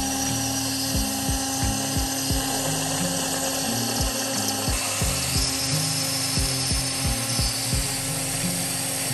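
CNC router spindle running with its small bit milling a pocket into an end-grain hardwood board: a steady high whine with the hiss of cutting, shifting in tone about halfway through. Background music with a low beat plays underneath.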